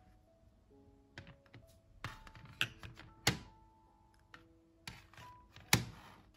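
About six sharp knocks of a utensil against small ceramic ramekins as vegetable purée is spooned in, over soft background music.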